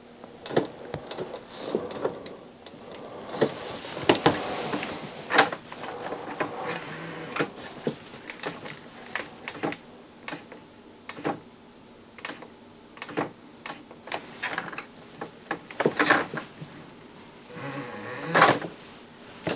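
Plastic clicks and knocks of a Grundig FineArts CD11 CD player's disc tray mechanism being cycled and worked by hand, at irregular intervals, with a small tray motor running at times. The tray is not moving properly.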